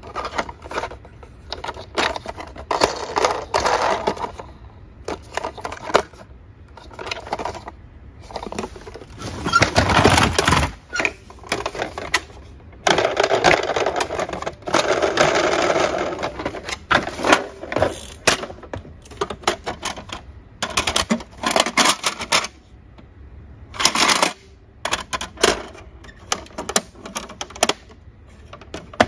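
Plastic toy ambulances being handled in a cardboard box: a run of irregular clicks and knocks, with two longer spells of rattling, one about ten seconds in and one from about thirteen to sixteen seconds in.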